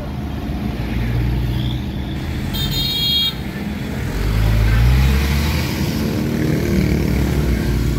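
Vehicle engine running with road noise heard from inside the cabin while driving, the low rumble growing louder about four seconds in. A short high-pitched beep sounds about two and a half seconds in.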